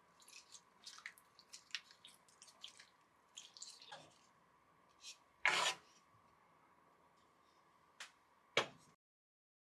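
Kitchen handling sounds: a run of small clicks and taps, a short rubbing rush about five and a half seconds in, then a sharp tick and a knock.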